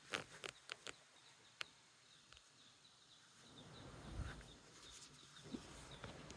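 Near silence outdoors: a few faint clicks in the first second and a half, then faint, short high chirps repeating in the background.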